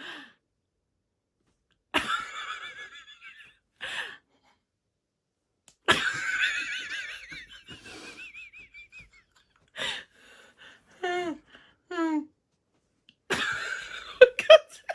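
Wheezy, breathless laughter in several bursts, with a few high squealing whoops that glide down in pitch near the end.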